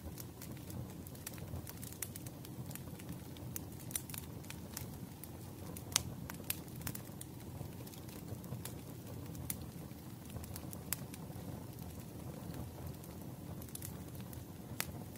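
Burning firewood crackling: irregular sharp pops and snaps over a low, steady rumble of flames, with the loudest pop about six seconds in.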